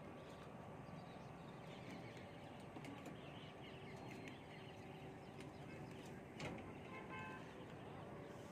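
Faint open-air ambience: a steady low background hum with scattered faint bird chirps, and a single sharp click about six and a half seconds in.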